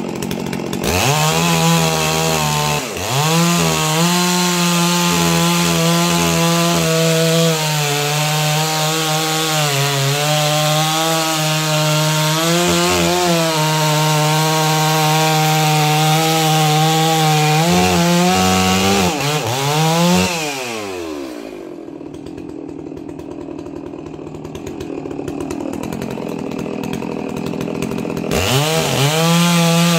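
A Holzfforma G660 two-stroke chainsaw being broken in, cutting through stacked firewood at full throttle, its engine note dipping briefly as the chain loads in the wood. About twenty seconds in the revs fall away to idle for several seconds, then the saw revs up and cuts again near the end.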